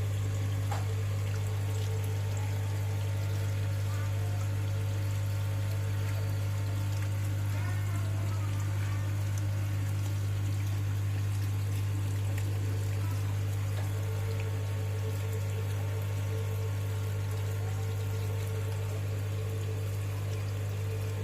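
Water pouring steadily into a koi pond, over a strong steady low hum.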